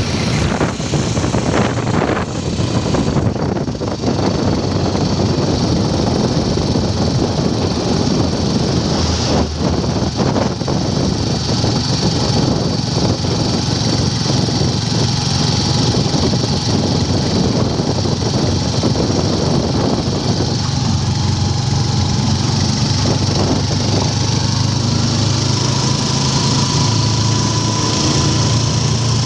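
Motorcycle tricycle's engine running steadily while under way, heard from inside the sidecar, with a constant hiss of wind and road. About twenty seconds in, a deeper steady engine hum comes up.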